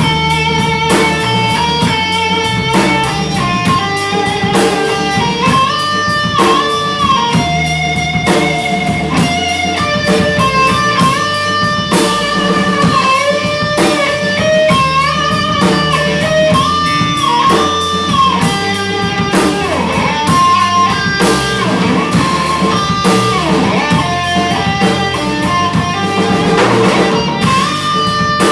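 Live rock band playing, led by an electric guitar carrying the melody with bent and sliding notes over bass and drums.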